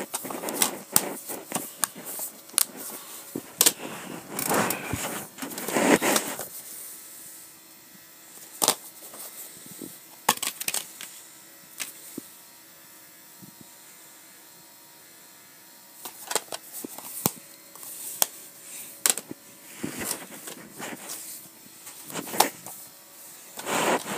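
Plastic DVD cases being handled and opened: scattered sharp clicks and snaps, with bursts of rustling. It goes quieter for several seconds in the middle, then the clicking resumes.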